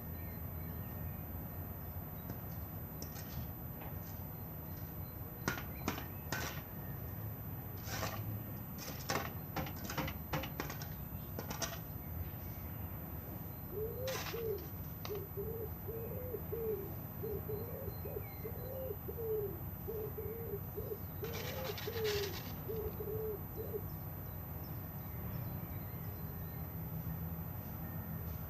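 A bird calling a quick run of about a dozen short, low notes, each rising and falling, over a steady low rumble, with scattered short sharp sounds before and after.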